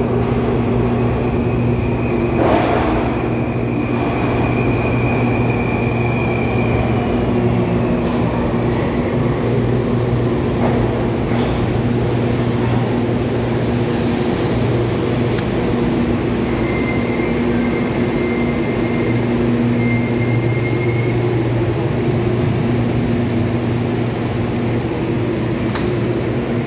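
Metro train of the 81-725/726/727 'Baltiets' type pulling into the station and running along the platform, a loud steady rumble with a low hum. A thin whine rises partway through, as the train slows.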